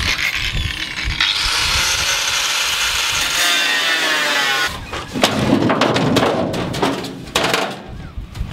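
Angle grinder cutting the tack welds that hold an aluminium pontoon tube to a dinghy hull. It runs hard for about four and a half seconds, its whine falling as it spins down, then stops. Sharp metallic knocks and clanks follow as the loosened tube is worked free.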